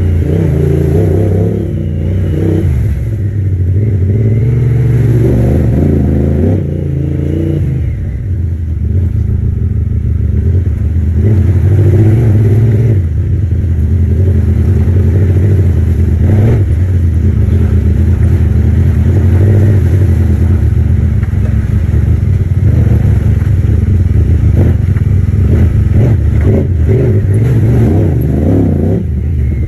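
Side-by-side UTV engine running under varying throttle on a muddy trail, its low note rising and falling. A few knocks and rattles from the vehicle over bumps, about halfway through and again near the end.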